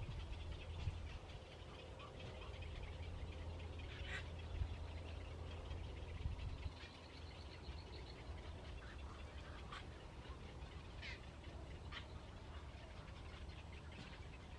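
Faint animal calls, a few short sharp chirps and rapid high trills, over a steady low rumble.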